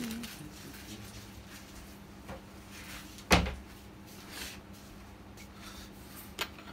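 A single sharp knock with a low thud about three seconds in, and a few faint clicks around it, over quiet room tone.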